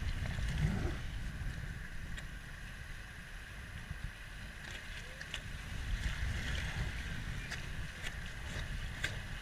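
River water rushing steadily past a raft on the Rio Grande, with an uneven low rumble of wind on the microphone and a few short clicks or splashes scattered through.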